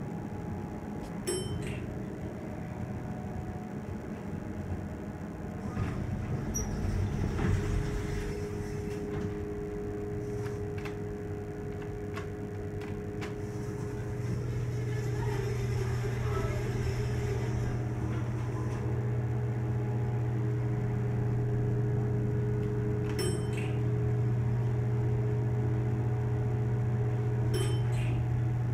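Elevator running, heard from inside the cab: a steady low hum with a fainter whine above it, growing louder about halfway through, and a few sharp clicks.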